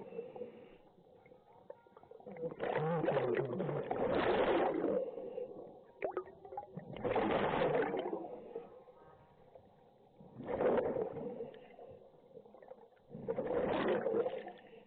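Scuba diver breathing out through a regulator, heard underwater: four bubbling breaths a few seconds apart, the first the longest.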